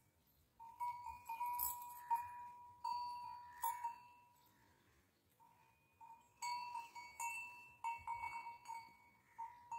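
Metal livestock bell clanking irregularly as the animal moves, each stroke leaving a ringing, bell-like tone. The strokes come in two clusters separated by a short lull.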